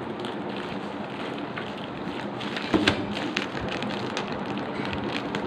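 Plastic courier mailer bag crinkling and crackling as its sealed flap is pulled and picked open by hand, with a couple of sharper crackles about three seconds in, over a steady hiss.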